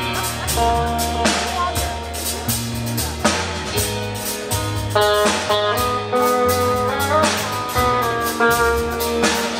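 Rock band playing live: electric guitars pick melodic lines over bass and a steady drum beat.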